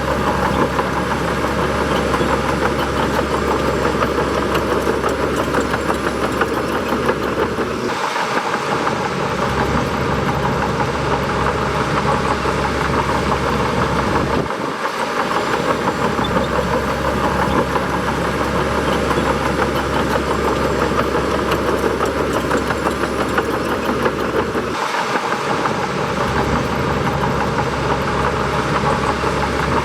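Bulldozer's diesel engine running steadily, with brief dips in its low rumble about 8, 15 and 25 seconds in.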